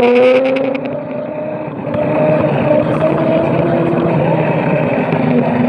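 Electric scooter running along a street, its motor giving a steady drone that drifts slowly up and down in pitch with speed, under wind rushing on the microphone.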